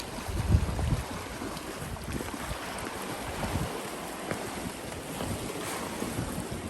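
Wind buffeting the microphone in irregular gusts, the strongest about half a second in, over a steady hiss of outdoor air.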